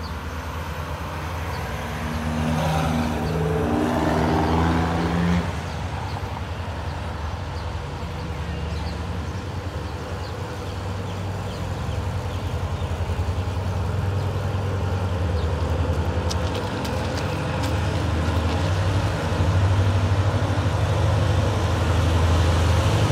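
Diesel-electric locomotive approaching with a steady low engine hum that grows louder over the last few seconds, mixed with road traffic. A pitched tone of several layers sounds for about three seconds near the start.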